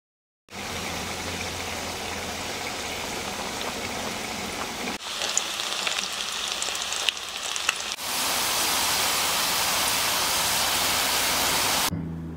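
Chicken pieces frying in hot oil in a pan: a steady sizzle with scattered sharp pops and crackles, changing abruptly at two edits and loudest over the last third.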